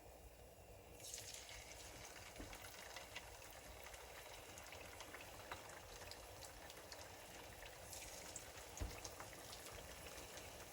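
Faint sizzling of oil frying besan-coated chicken pakora, with many small crackles and pops, growing louder about a second in.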